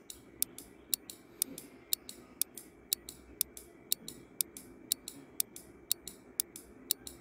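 Countdown timer ticking as a clock sound effect: sharp, even ticks about two a second, over a faint steady hiss.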